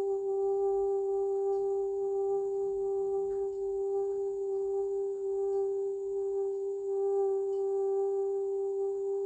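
A single steady meditative drone tone held without a break, at one low-middle pitch with faint evenly spaced overtones.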